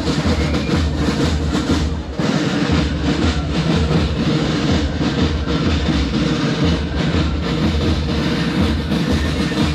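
Carnival band music with a steady bass-drum beat, about two strokes a second, under a dense din.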